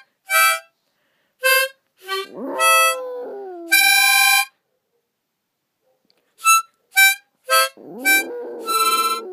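Harmonica playing short separate notes and one longer held note, with a chihuahua howling along twice, its howls sliding in pitch. Both stop for about two seconds midway.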